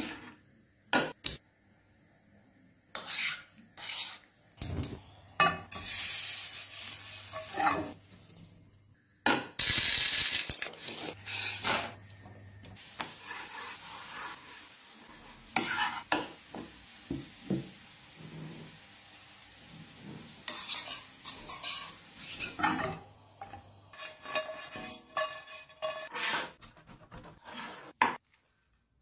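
Kitchen prep sounds: a knife and utensils clicking, knocking and scraping against a wooden cutting board and dishes, with two longer stretches of steady hiss in the first half.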